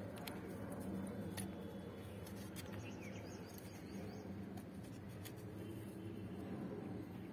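Faint steady background noise with a few scattered short clicks.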